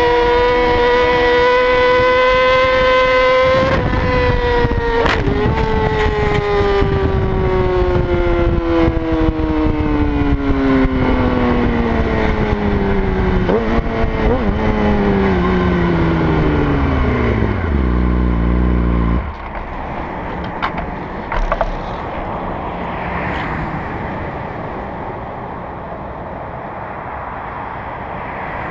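Motorcycle engine held at high revs at speed, then winding down in one long, steady fall in pitch over about fifteen seconds as the bike slows, with a few short knocks along the way. The engine note ends a little past halfway, leaving a quieter steady rush of wind and road noise.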